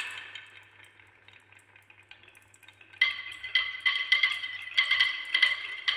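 Glass marbles rolling down wavy-grooved wooden chutes: first faint, scattered ticks, then from about three seconds in a busy run of clicks and clacks as the marbles knock against each other and the wood, each click with a bright glassy ring.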